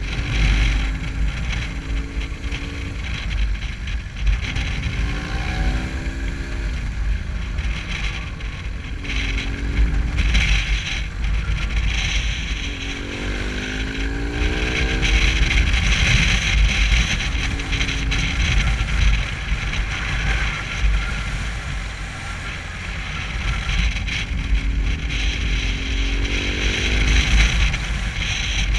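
Motorcycle engine running under way, rising in pitch several times as it accelerates, over heavy wind rumble on a helmet-mounted camera.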